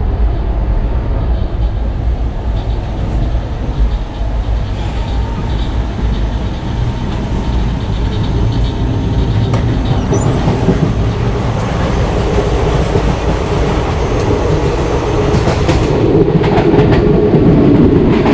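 Ernad Express passenger train running on the track, heard from inside the coach: a steady low rumble of wheels and carriage, growing louder near the end with clattering wheel noise.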